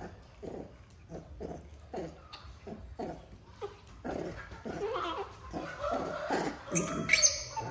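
Baby monkey making small whimpering vocal sounds, short ones about twice a second at first, then busier, with a loud, sharp high-pitched squeak a little before the end.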